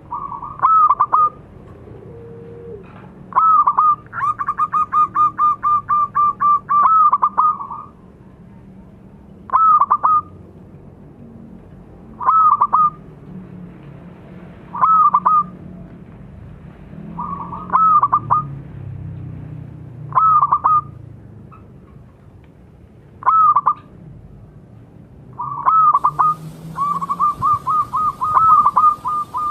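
Zebra dove (perkutut) cooing: short phrases of quick, rattling coo notes repeat every two or three seconds. A long run of rapid coos comes about four seconds in, and another near the end.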